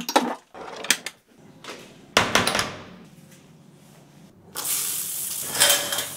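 Wire shower caddy clinking and rattling as toiletries are handled, with a sudden louder rush of noise about two seconds in, then a shower spraying water as a steady hiss from about halfway through.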